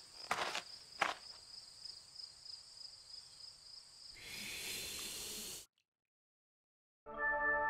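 Cartoon sound effects: two soft footsteps early on over a steady high cricket-like chirring, then a hissing rush of about a second and a half as the bird's beak touches the gold nugget. After a second of dead silence, music comes in near the end.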